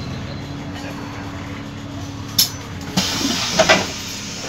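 Bus engine idling, heard from inside the cabin by the front doors. About two and a half seconds in there is a sharp click, then a burst of compressed-air hiss with a couple of clunks.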